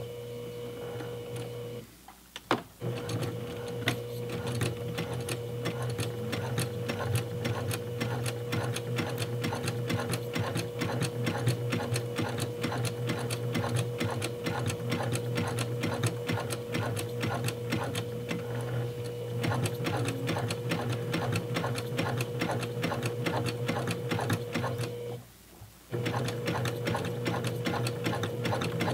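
Straight-stitch home sewing machine running, its motor humming steadily under a rapid even clatter of needle strokes as it top-stitches through folded denim layers of a flat felled seam. It stops briefly about two seconds in, with a click as it restarts, and stops again for under a second near the end before running on.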